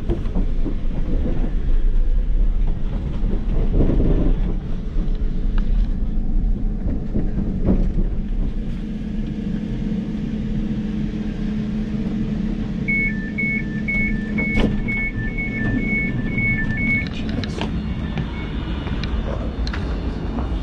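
Steady low rumble and hum of a passenger train coming into a station, heard from beside the carriage doors. About two-thirds of the way through, the door-release alert beeps about twice a second for some four seconds, with a few sharp clunks as the doors open.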